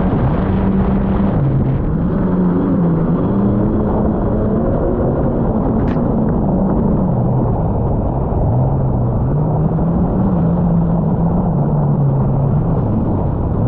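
Steady rumble of wind and road noise from a long ride, with a slow, low bass line of background music stepping up and down over it.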